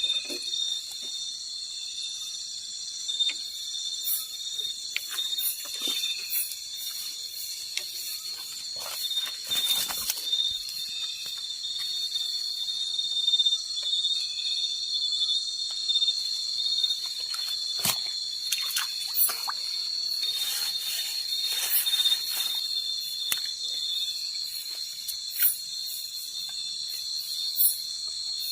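Forest insects, crickets among them, calling in a steady high chorus of several overlapping tones, with scattered short clicks and taps.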